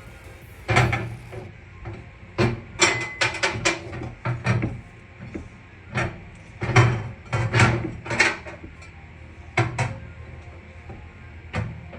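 A microwave oven being shoved and jostled on a countertop: a dozen or so irregular knocks, bumps and short scrapes as it is pushed back against the wall.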